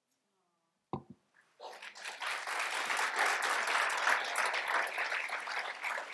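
Audience applauding, starting about a second and a half in and building to steady clapping. A short sharp knock comes just before it.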